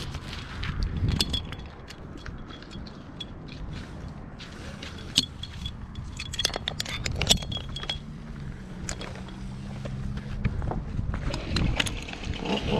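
Metal climbing hardware, carabiners and rope devices, clinking and jangling in irregular sharp clicks as a tree climber moves on the rope, over a low hum. Near the end a chainsaw starts up and rises in pitch.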